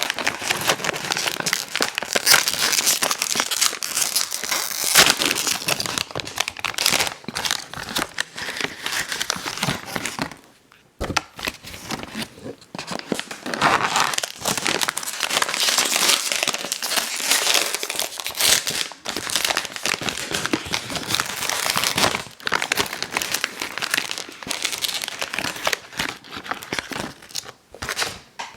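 Ice cream sandwich wrapper being crinkled and torn open, continuous close-up crackling that breaks off for about a second near the middle.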